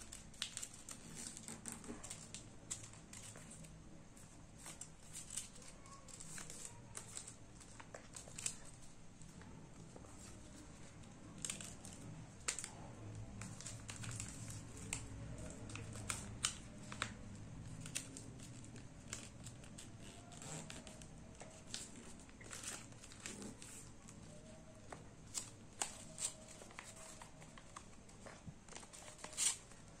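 Sheet of origami paper being folded and creased by hand: faint, irregular crinkling and sharp crackles as the folds are pressed.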